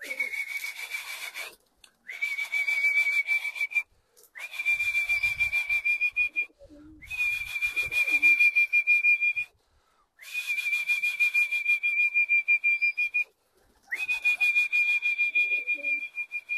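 A pigeon keeper's whistle, blown in six long trilling blasts at one steady high pitch with short breaks between, each note swooping up slightly at its start: the signal that sends the pigeons up to fly.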